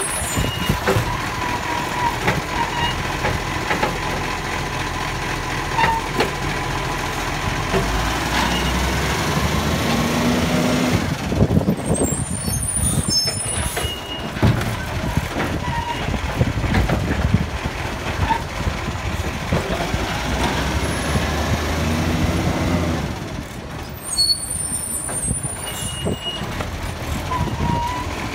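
Iveco side-loader garbage truck's diesel engine running while its hydraulic arm grabs, lifts and tips wheelie bins, the engine revving up twice as the arm works, with scattered clanks and knocks from the arm and bins and hisses of air.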